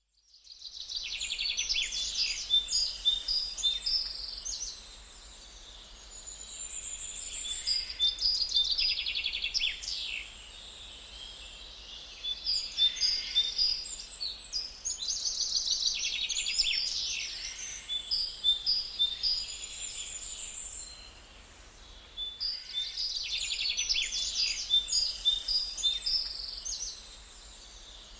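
Small aviary birds singing, with high, rapid chirping phrases in bouts of a few seconds separated by quieter pauses.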